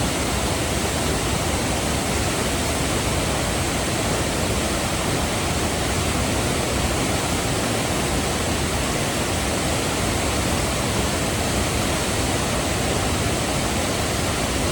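Flooded river in spate: a loud, steady roar of fast, churning water.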